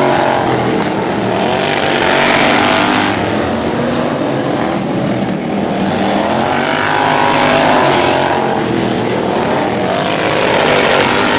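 Engines of several outlaw-class racing lawn mowers running hard around a short dirt oval, swelling loudly as they pass at the start, about two seconds in, around seven to eight seconds in and again near the end, and fading between passes.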